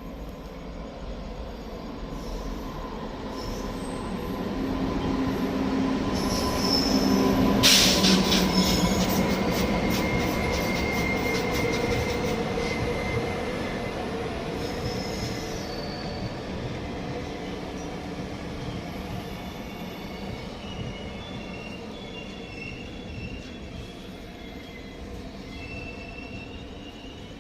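A train passing by. It grows louder to its peak about eight seconds in, with a brief run of clattering over the rail joints and a thin metallic wheel squeal, then slowly fades as it moves away.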